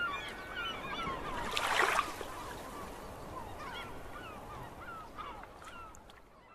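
A flock of birds calling, with many short honking or squawking calls overlapping. A brief rush of noise comes about a second and a half in, and the calls fade out near the end.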